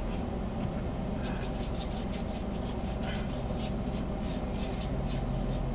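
Idling vehicle engine, a steady low hum heard from inside the cabin. From about a second in there is a run of quick, irregular rubbing or rustling scrapes close to the microphone.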